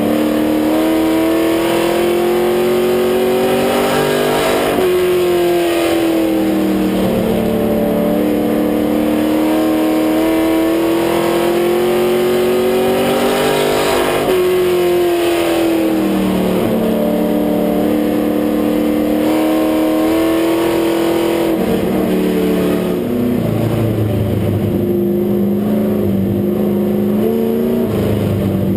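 Stock race car engine heard from inside the cockpit at racing speed. Its pitch climbs steadily, then drops sharply four times, about every eight to nine seconds, as the car works around a short oval.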